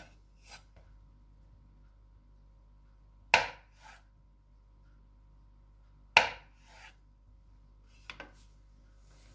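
Chef's knife slicing a boiled potato into rounds on a wooden cutting board: the blade knocks sharply on the board twice, about three seconds apart, with a weaker double knock near the end and a few faint ones between.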